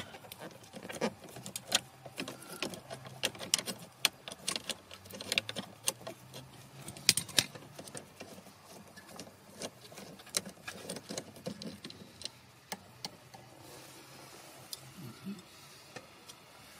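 Socket wrench with an 8 mm socket undoing the heater pipe flange bolts on a heater core: a run of quick, irregular metallic clicks and ticks that thins out near the end.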